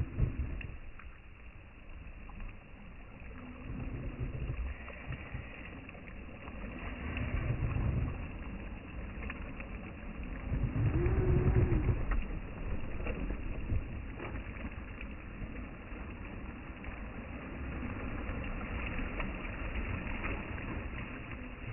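Traxxas TRX-4M RC crawler's small electric motor and geared drivetrain running in short bursts as it climbs rocks, the loudest burst about halfway through with a pitch that rises and then falls.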